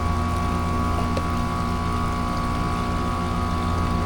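Air-conditioning outdoor condenser unit running: a steady low mechanical hum from the compressor and fan.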